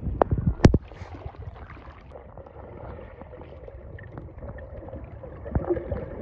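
Water sloshing with a low rumble, and a few sharp knocks in the first second.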